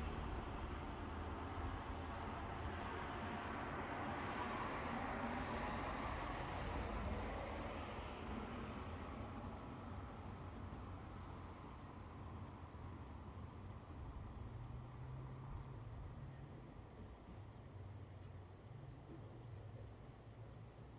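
Crickets chirping in a fast, even pulse over a low rumble. A broad whooshing noise swells about four seconds in and fades away over the next several seconds.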